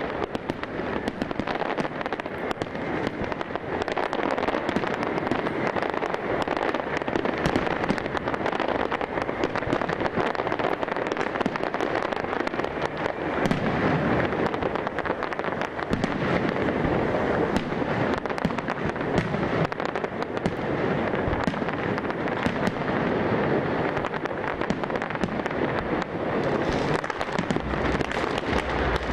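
Big fireworks display: a dense, continuous barrage of crackles and bangs, with no let-up.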